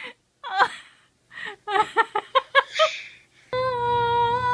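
A young child giggling in a quick run of short bursts. Then, near the end, a sudden change to a steady high-pitched whine.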